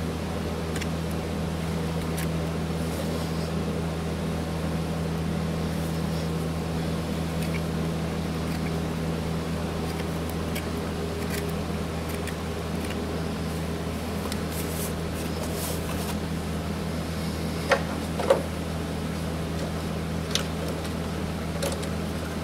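Steady low machine hum, with faint scrapes and ticks of a hoof knife paring a horse's hoof. Two sharp clicks close together and a third come near the end.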